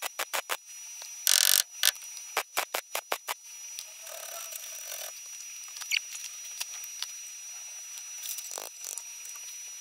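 Welder stitch-welding a patch panel into a car's A-pillar: a quick run of short arc bursts with one longer burst about a second in, stopping about three seconds in. Then quieter scratching of a hand wire brush on the fresh weld, over a steady high whine.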